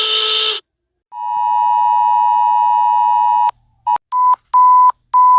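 Broadcast emergency alert tones. A harsher, noisier alarm tone cuts off about half a second in. After a short gap comes a steady two-note alert tone for about two and a half seconds, then a run of short beeps at one pitch.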